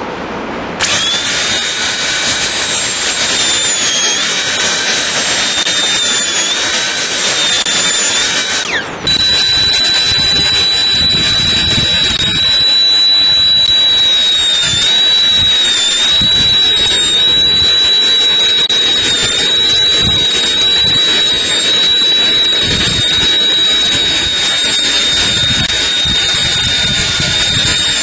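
High-speed dental handpiece whining steadily as its bur cuts a crown preparation on an upper central incisor, the pitch dipping slightly now and then as it bears on the tooth. It starts about a second in and cuts out briefly about a third of the way through before running on.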